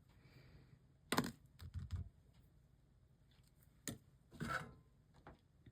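A few light clicks and knocks of tools and glass being handled on a workbench during stained glass soldering, with a short rustle near the end.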